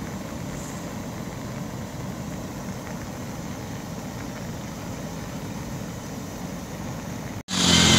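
Floodwater pouring over a washed-out road edge: a steady, low rushing rumble with no breaks.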